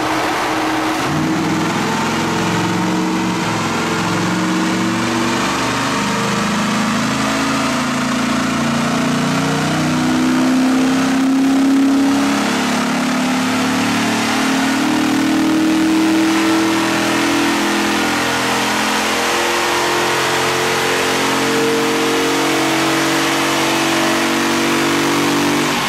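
2012 Ford F-150 SVT Raptor's 6.2-litre V8, fitted with a Stainless Works cat-back exhaust and an Airaid cold air intake, running on a chassis dyno. Its pitch climbs over the first dozen seconds, then holds fairly steady.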